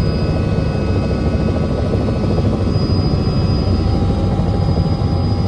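Helicopter running: a loud, steady rotor and engine rumble with a thin high whine over it.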